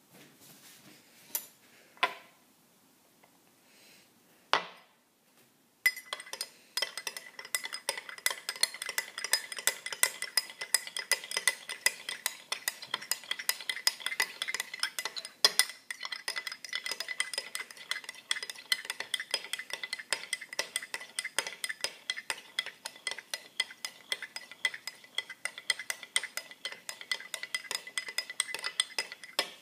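A metal utensil stirring rapidly in a drinking glass, clinking against the glass many times a second while the glass rings with a steady high tone. The clinking starts about six seconds in, after a few separate knocks.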